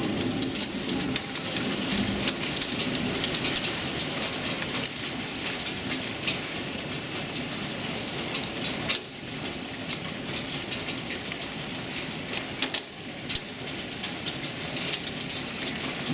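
Heavy rain falling steadily, with many sharp ticks of drops striking hard surfaces.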